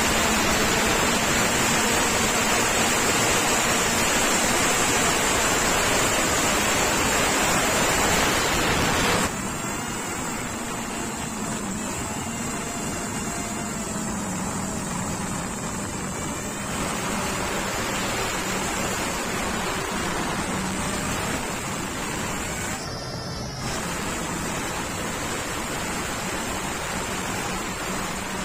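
FPV racing drone's motors and propellers heard through the phone mounted on the drone: a steady, loud rushing noise with a faint high whine and slight shifts in motor pitch. The level jumps abruptly a few times.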